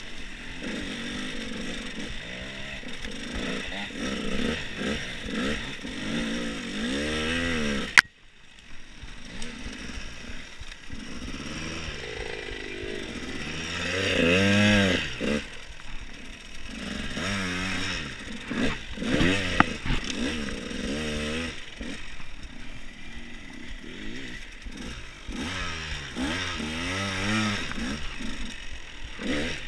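Dirt bike engine revving up and down as it is ridden over a woodland trail, the pitch rising and falling with the throttle. There is a sharp click and a sudden brief drop in sound about eight seconds in, then the engine picks up again.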